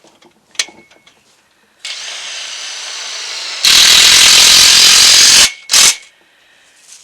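Power drill driving into wood. A spin of about two seconds with a steady whine is followed by a much louder, harsher run of nearly two seconds, and then a short final burst.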